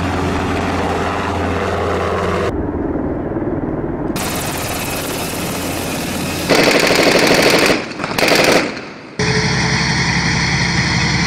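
A helicopter's engine and rotor run steadily at first. About six and a half seconds in come two loud bursts of rapid automatic gunfire. Then a heavy tank engine runs steadily to the end.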